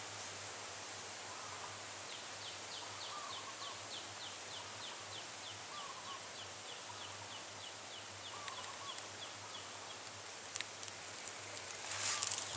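Forest ambience under a steady hiss: a bird gives a long run of quick, short, high notes, about three or four a second, with faint warbling calls now and then. Near the end, dry leaves crackle and crunch, growing louder.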